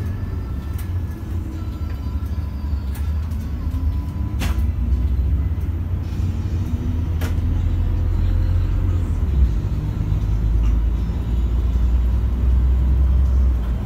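Solaris Urbino 15 city bus heard from inside the cabin near the front: a low engine and drivetrain rumble that grows louder as the bus gathers speed, with a faint rising whine. Two sharp clicks sound near the middle.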